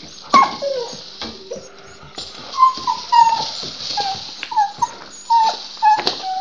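Dog whining in a quick series of short, high whimpers and yips, many sliding down in pitch, as she plays with a rattle ball. Sharp clicks and knocks are mixed in among the whines.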